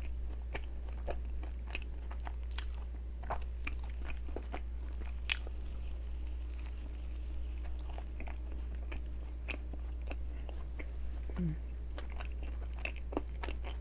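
Close-miked chewing of a Lotus cream-filled doughnut: soft, irregular mouth smacks and clicks from biting and chewing, over a steady low hum.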